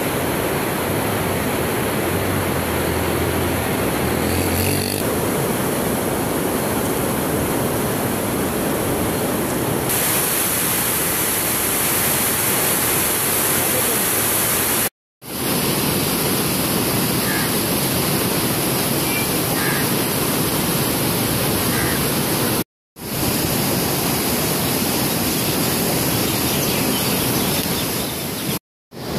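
Steady rush of water pouring through a canal regulator's gates, broken by three short silent gaps.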